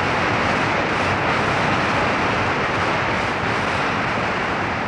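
Loud, steady rush of water, an even hiss with no rhythm or pitch.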